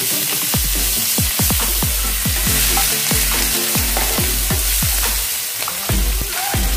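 Ginger, garlic and green chilli paste sizzling in hot oil in a frying pan as it is stirred, over electronic background music with a thudding beat.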